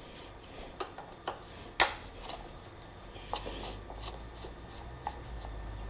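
Phillips screwdriver and motorcycle side cover being worked: scattered light metal clicks and taps with brief rubbing, and one sharper knock about two seconds in.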